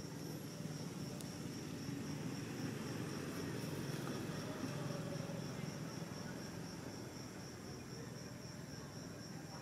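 An insect trilling: a high, evenly pulsing note held on one pitch, over a low steady background rumble.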